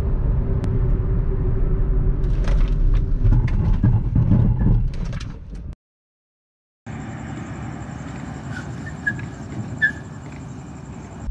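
Hyundai i20's 1.2-litre four-cylinder petrol engine and tyres heard inside the cabin at highway speed, a steady low rumble with a few light clicks and knocks. It cuts off abruptly, and after about a second of silence a quieter steady background hiss follows, with a faint thin high tone.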